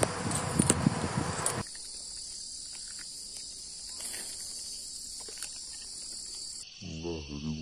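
Steady high-pitched chorus of crickets or similar insects. For the first second and a half it is covered by louder rustling with a few sharp knocks. Near the end the insect drone drops lower in pitch and a low, wavering pitched sound comes in.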